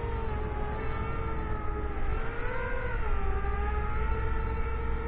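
FPV quadcopter's motors and propellers whining in a hover. The pitch is steady, rising briefly about two and a half seconds in and dropping back. Low wind rumble on the microphone runs underneath.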